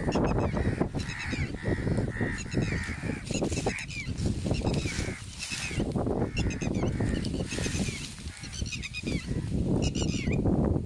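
Birds calling in quick chattering runs of short high notes, about one run a second, over a steady low rumble of wind on the microphone and rustling grass.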